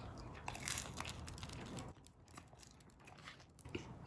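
Someone biting into and chewing a fresh-baked black sesame bagel spread with cream cheese, its crisp crust crunching, for about two seconds. A light knock near the end as the bagel is set back down on a wooden cutting board.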